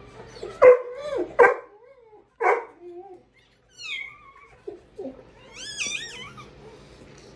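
Newborn Cane Corso puppy crying: a run of short, loud yelping cries in the first few seconds, then a falling high whine and wavering high-pitched squeals, a sign the revived puppy is breathing and vocal.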